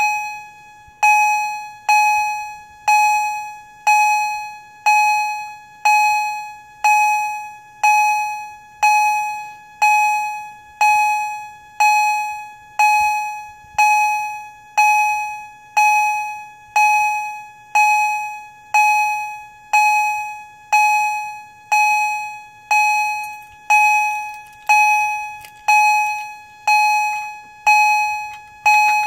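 Edwards 2455-B electronic chime striking a steady, bell-like tone about once a second, each stroke decaying before the next. The fast stroke rate comes from SpectrAlert coding by the MDL module.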